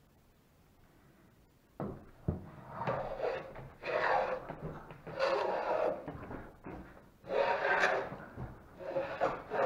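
Hand plane shaving the corners off an eight-sided hollow wooden mast, cutting new flats toward round. After about two seconds of quiet come two knocks, then about five rasping strokes, each roughly a second long.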